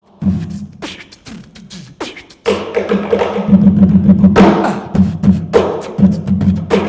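Beatboxing: a vocal bass hum under sharp, clicked drum sounds in a steady rhythm, getting louder and busier about two and a half seconds in.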